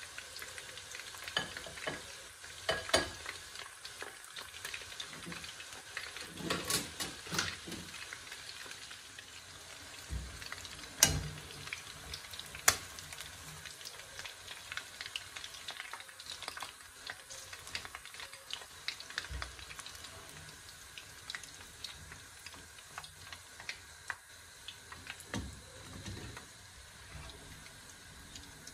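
Battered chicken pieces deep-frying in hot oil: a steady sizzle. A few sharp clinks and knocks come from a wire spider skimmer working in the pan as the pieces are lifted out.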